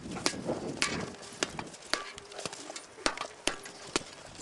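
Staged sword fight: swords clashing and striking a round targe shield, about a dozen sharp irregular knocks.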